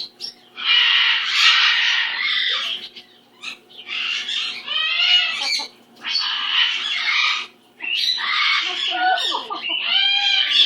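Pet cockatoo squawking: about four long, harsh calls, each one to two and a half seconds, some with a wavering pitch.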